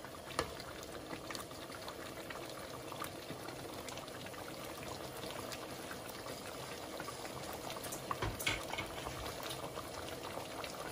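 Thick beef ragu simmering in a pot on the stove: a steady bubbling with scattered small pops, and a few louder light clicks.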